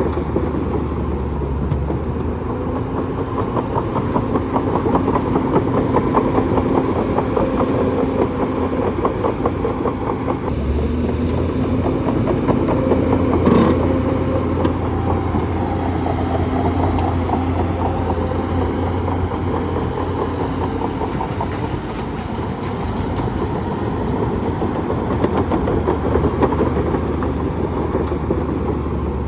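A bulldozer's diesel engine running steadily, with one sharp knock about thirteen seconds in.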